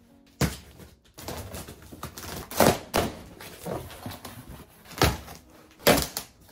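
Large cardboard shipping box being cut open along its taped seam and its flaps pulled back: a run of tearing and scraping cardboard with several sharp thumps, the loudest near the end as the flaps come open.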